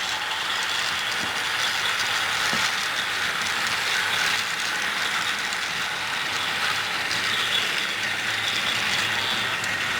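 Several battery-powered motorized Thomas & Friends toy trains running together on plastic track: a steady whirring of small geared motors with the rattle of plastic wheels on the rails.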